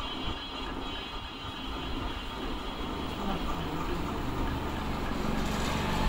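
Steady background rumble of vehicle noise, with a faint high whine over it for the first couple of seconds and a lower hum growing near the end.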